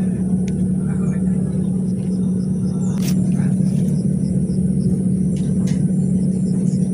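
A motor running steadily nearby: an even low rumble with a constant hum, and a sharp click about three seconds in.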